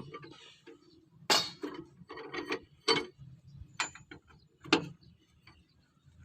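Wheel nuts on a Hino Ranger truck being tightened with a wrench: irregular metallic clicks and clanks, with four sharper knocks spread through.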